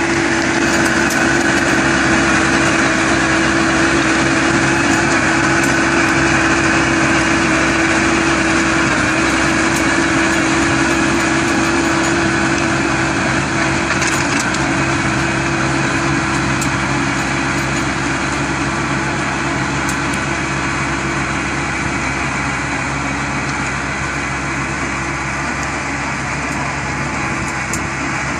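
Crawler tractor's 75 hp engine running steadily under load as it pulls a ridging implement through the soil, growing slightly fainter as it moves away.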